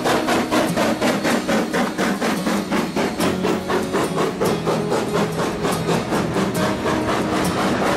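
Queensland Rail AC16 class steam locomotive 221A, a US-built 2-8-0, passing under way with sharp, rapid exhaust beats from its short stack, about five a second, fading as it goes by. From about three seconds in, the wagons' wheels clatter and ring on the rails.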